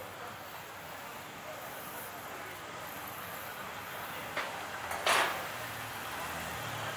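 Steady city street ambience. About four and a half seconds in comes a short click, then just after five seconds a brief, louder hissing burst.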